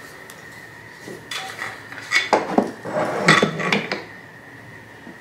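Metal clamps clinking and rattling as they are handled and set in place, in a few clusters of sharp clicks starting about a second in.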